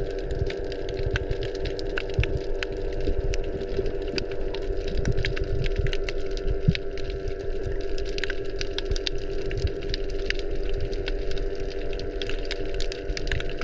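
Underwater sound picked up by a camera: a steady engine-like drone with a constant low hum, and scattered sharp clicks and crackles throughout.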